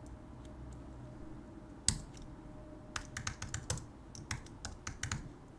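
Typing on a computer keyboard: a single keystroke about two seconds in, then a quick run of key clicks and a few scattered ones after it.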